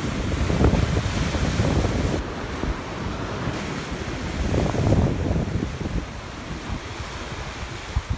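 Ocean surf breaking and washing over shoreline rocks, swelling louder about a second in and again about five seconds in. Wind buffets the microphone with a low rumble.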